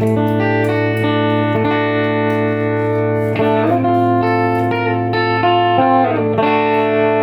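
Electric guitar played through a Bell 3723M PA head in overdrive, with its negative feedback switch engaged and the boost off: sustained, distorted chords that ring on and change every second or so.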